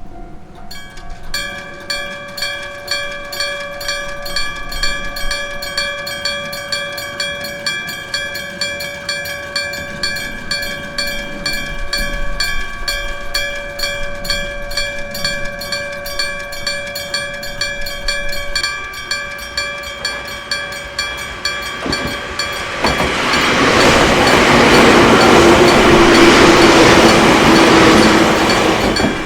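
Electric bell (denshō) of a Japanese railway level crossing striking at an even pace, about two strokes a second, ringing on, signalling that a train is coming. From about 22 seconds in, a passing train's loud rumble rises over the bell until near the end.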